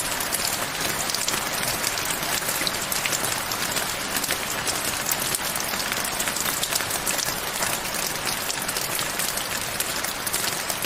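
Steady rain falling, with the close, crackling patter of many individual drops hitting surfaces.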